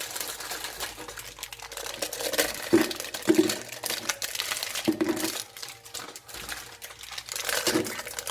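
Biscuit packet wrappers crinkling and tearing as the packets of chocolate cream biscuits are opened and handled. A few short dull knocks come in among the crinkling.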